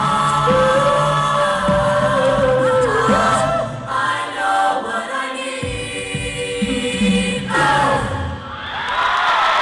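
Large mixed a cappella vocal group singing the closing bars of a song in close harmony, with a held lead line over sustained chords. The singing stops about eight seconds in and the audience starts cheering and clapping.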